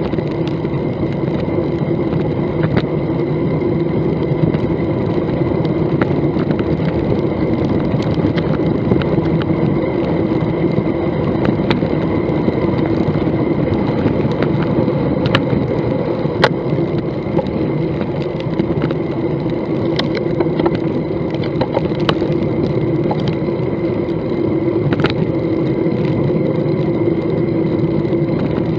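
Bicycle riding at cruising speed on asphalt: steady wind and tyre noise on the microphone, with scattered sharp clicks and rattles from the bike over bumps.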